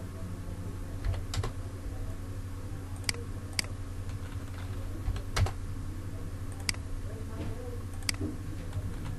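Scattered sharp clicks of a computer keyboard and mouse being worked while drawing in CAD software, about seven in all, unevenly spaced, over a steady low hum.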